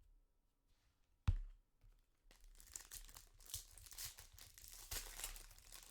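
A single knock about a second in, then the crinkling and tearing of a trading-card pack wrapper being torn open.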